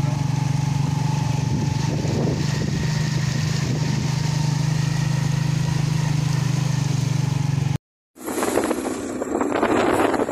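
Motorcycle engine running at a steady pitch for about eight seconds, then stopping suddenly. After a short gap of silence, wind rushes and buffets against the microphone of the moving vehicle.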